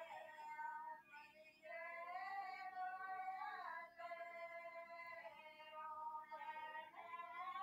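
A woman sings a Himachali (Kangri) wedding folk song (vivah geet) for the haldi ceremony, in long, held, slightly wavering notes; the phrases break briefly about a second in and again near the four-second mark.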